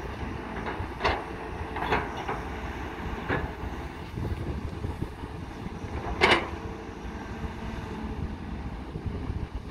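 Tracked excavator working, its diesel engine running with a steady low rumble. Sharp metallic clanks come about 1, 2 and 3 seconds in, with a louder ringing one about 6 seconds in.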